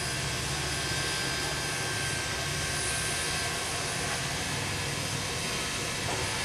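Canadian National 7470 steam locomotive standing at rest under steam, hissing steadily over a low rumble, with a faint steady whine.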